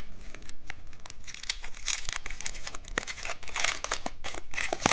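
Plastic candy wrapper being torn open and crinkled by hand, a run of crackling and rustling.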